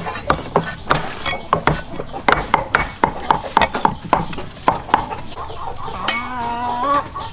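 Knife chopping spring onions on a wooden chopping block in quick, even strokes, about three to four a second, stopping about five seconds in. A short pitched call follows about a second later.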